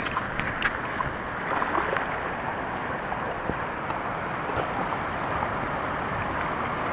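A steady rush of small waves washing in over the sand, with two Staffordshire bull terriers splashing through the shallows.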